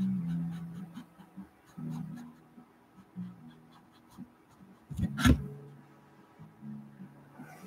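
A paintbrush dabbing and scratching on a canvas board in small strokes, with one sharp knock about five seconds in. Faint, broken low tones run underneath.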